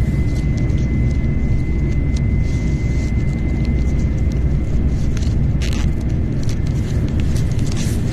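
Shinkansen bullet train running, heard from inside the passenger cabin: a loud, steady low rumble, with a thin steady high tone during the first half and a few brief clicks.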